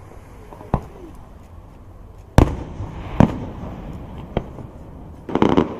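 Aerial fireworks going off: four separate sharp booms, the loudest about two and a half seconds in. Near the end a dense run of rapid crackling pops begins.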